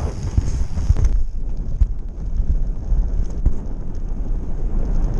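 Wind buffeting the microphone of a rider on a gravel bike, a steady low rumble, with scattered ticks from the tyres rolling over gravel.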